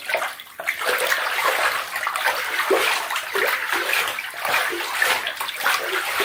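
Hands stirring and sloshing bathwater in a filled bathtub: continuous swishing and splashing with many small irregular swells, strengthening about a second in.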